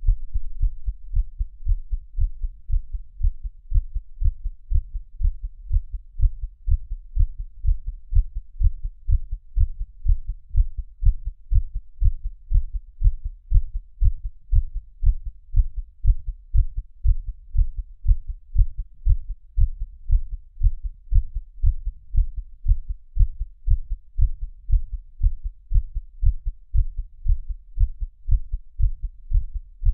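A person's heartbeat recorded close against the chest: steady, regular dull low thumps repeating evenly.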